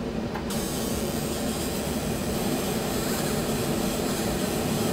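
Fume extractor drawing air through a flexible duct hose held close over the laser work: a steady rush of air with a low hum underneath, the hiss filling out about half a second in.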